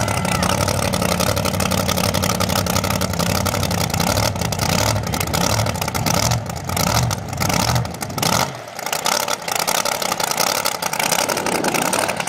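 Hammerhead mud truck's engine running loud and revving unevenly, with a deep rumble that rises and falls. About eight seconds in the deep rumble drops away, leaving rougher, choppier engine noise.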